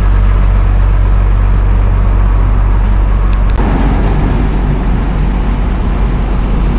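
Diesel engine of a large intercity coach idling close by, a steady low rumble. A couple of sharp clicks about three and a half seconds in.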